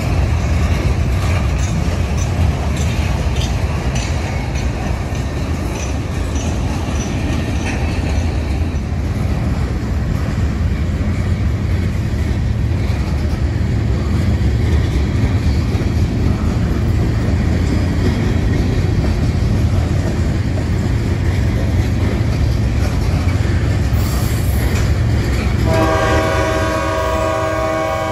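Freight train cars rolling past close by: a steady rumble of steel wheels on rail with clickety-clack over the joints. About two seconds from the end a train horn sounds a steady chord.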